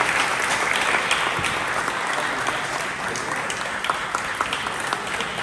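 A small crowd of spectators applauding: many hands clapping together, with single sharp claps standing out, easing off slightly toward the end.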